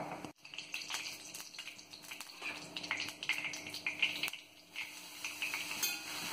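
Ghee sizzling in a hot kadai with many small crackling pops. About four seconds in, grated carrot is tipped into the ghee and fries with a fainter, steady sizzle.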